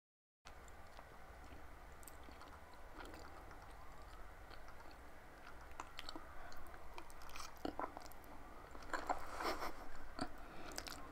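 Quiet, close-miked eating of creamy fettuccine Alfredo: a fork twirling the noodles on the plate with small clicks, and soft wet chewing, louder in the last few seconds.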